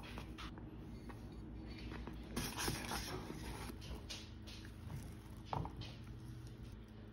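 Thick grits being stirred in a stainless saucepan with a whisk and a silicone spatula: soft wet squishing and scraping against the pan, with a few louder scrapes about two and a half and five and a half seconds in. A steady low hum runs underneath.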